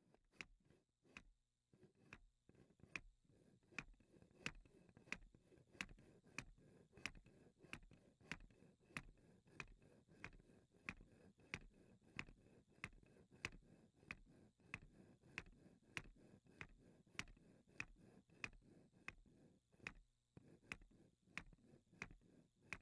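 Wooden stamping hammers on a model Bessler perpetual-motion wheel, lifted in turn by the turning axle's pegs and dropping back. They make a steady run of sharp knocks.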